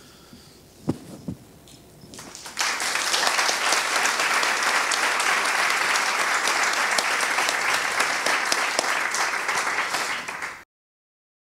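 Audience applause that starts about two and a half seconds in, a dense steady clapping that is cut off abruptly near the end.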